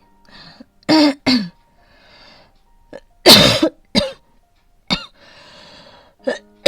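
A woman coughing hard in short fits, about seven coughs with audible breaths drawn in between: an asthma cough during a flare-up.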